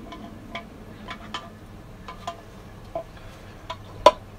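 Irregular light clicks, about one every half second, with one sharper click near the end, as a hand pump oil can is worked to squirt oil into the hydraulic lifter bores of a diesel cylinder head.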